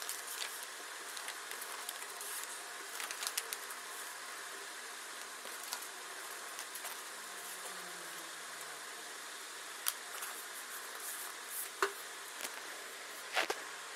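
Paper rustling and handling as a paper envelope is opened and cut-out paper puzzle pieces are taken out and laid down, over a steady hiss. A cluster of short rustles comes about three seconds in, and a few sharp clicks fall in the last few seconds.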